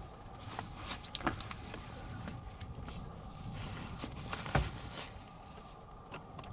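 Safari vehicle's engine idling with a low, steady rumble, with a few sharp clicks and knocks over it, the loudest about four and a half seconds in.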